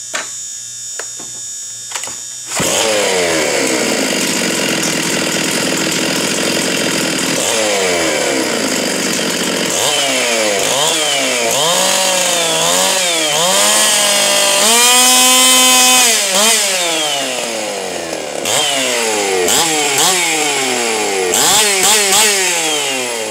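Stihl 066 Magnum two-stroke chainsaw, ported for a West Coast build with raised compression and enlarged ports, running through an open buckshot muffler. It starts suddenly about two and a half seconds in and runs loud, is revved up and down several times, is held at high revs for a moment near the middle, then gets a run of quick throttle blips near the end.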